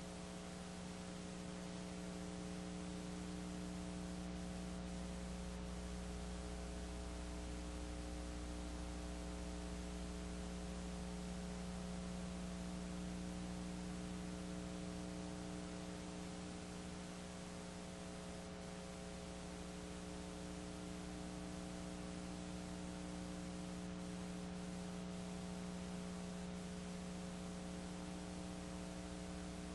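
Steady electrical mains hum with constant hiss on the soundtrack of an old videotape transfer. No game sounds stand out.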